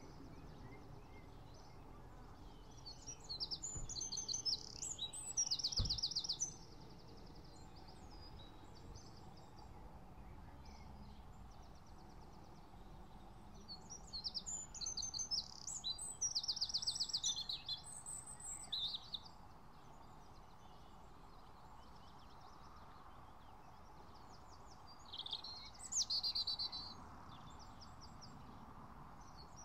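Songbirds singing: phrases of rapid, high repeated notes and trills, coming in three bursts of a few seconds each with quieter gaps between, over a faint steady background hiss.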